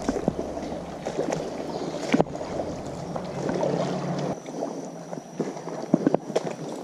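Creek water sloshing and splashing around a wader's legs, with scattered sharp splashes and knocks.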